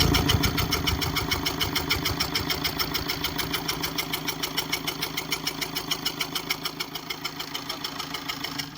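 Freshly rebuilt engine idling with a steady, rapid, even ticking knock, several beats a second. The noise remains after a complete overhaul of the head, pistons, piston rings and crank, and its source is unknown. The engine stops right at the end.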